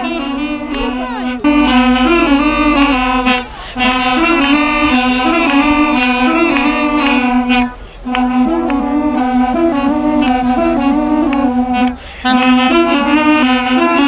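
Several duduks playing a melody together over a steady held low note, in phrases of about four seconds with brief pauses for breath between them. The sound grows louder about a second and a half in.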